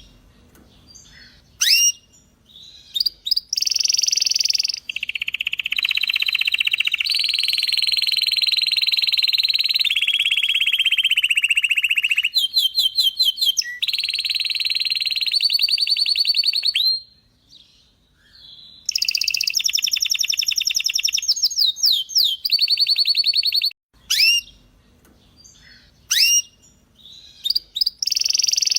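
Belgian canary singing: long rolling trills of fast repeated notes and upward-sweeping calls, broken by short pauses.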